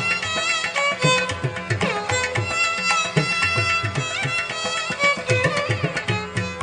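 Background instrumental music in an Indian classical style: a melody that glides in pitch, over regular hand-drum strokes.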